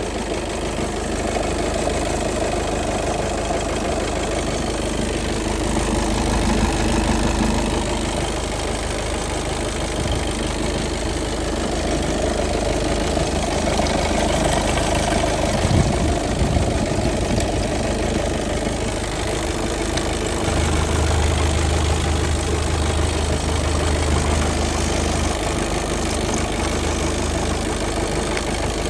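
Volkswagen Golf 7 2.0-litre engine with automatic gearbox idling steadily, making a noise the owner puts down to the flywheel. A deeper drone joins in for a few seconds about two-thirds of the way through.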